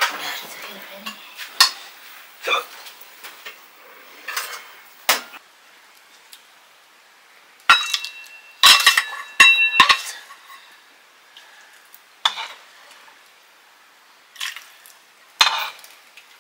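Metal dishes and utensils clinking irregularly while food is served and eaten, with a cluster of ringing clinks about eight to ten seconds in.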